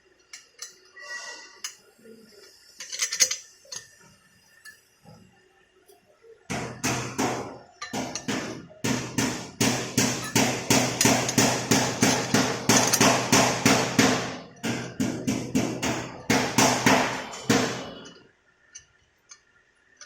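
Light metallic clinks of metal parts being handled, then a long rapid series of hammer blows on metal, several a second, lasting about eleven seconds before stopping.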